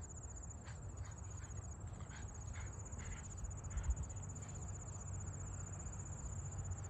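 A steady, high-pitched pulsing trill of crickets, a summer insect chorus, over a faint low rumble.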